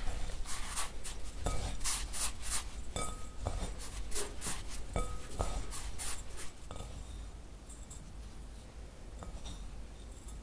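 Hands rubbing damp rice flour between the palms in a glass bowl, a quick series of gritty rustling strokes that grow softer about two-thirds of the way through. It is the moistening step for rice cake (seolgi), rubbing strawberry purée into the rice flour.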